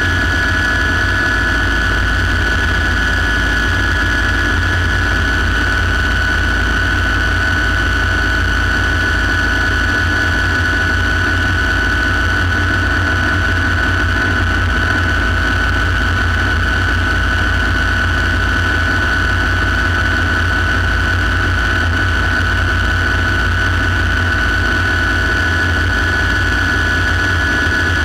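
Light turbine helicopter in flight, heard from inside the cockpit: a steady high turbine whine over a constant low rumble.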